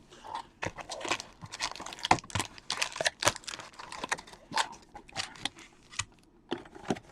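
Packaging being handled and torn open, irregular crinkling and crackling with short tearing rustles, as a sealed trading card box is unwrapped.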